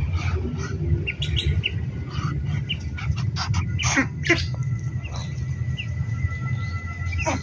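Ducklings peeping in many short, quick calls as they are hand-fed, over a steady low rumble.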